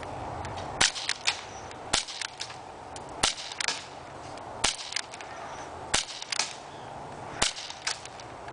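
H&K USP CO2 non-blowback airsoft pistol firing six semi-automatic shots about a second and a half apart, each a sharp crack followed by a few fainter ticks.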